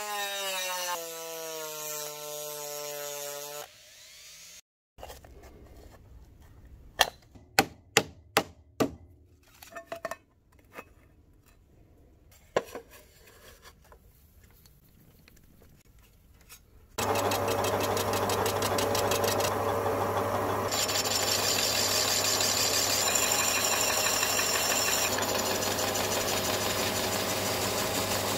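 A small rotary tool with a sanding drum runs with its pitch falling in steps, then stops. Next comes a quiet stretch broken by a quick run of about five sharp taps and a few more knocks. From about two-thirds of the way in, a metal lathe runs with a steady hum while a wooden tool presses a metal disc onto a wooden spinning form.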